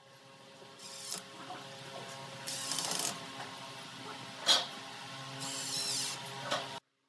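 Cordless impact driver running in several short bursts, driving screws into a black plastic crate, with its impact mechanism rattling; the loudest moment is a sharp snap about four and a half seconds in. The sound cuts off suddenly just before the end.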